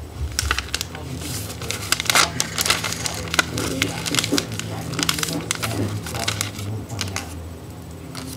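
Sheet of paper being folded and creased by hand into a paper airplane's wings, with crinkling and sharp crackles as the folds are pressed flat; the loudest crackles come about two seconds in.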